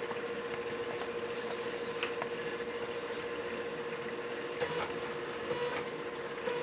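DIY automatic alkalinity tester built from an HP DeskJet printer's mechanism, running with a steady mechanical hum and a few faint clicks as its carriage moves the test unit.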